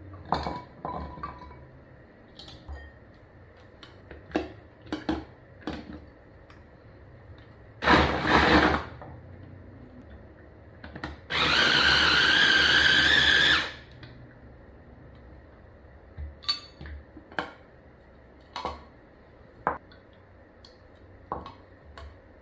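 Small electric food chopper running once for about two seconds, a steady motor whine as it minces carrots in its glass bowl. Around it, glass bowls and the chopper's lid clink and knock, with a louder clatter about a second long a few seconds before the motor starts.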